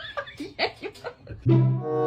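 Short broken bursts of voice-like sounds, then background music with a low bowed-string note that starts about one and a half seconds in.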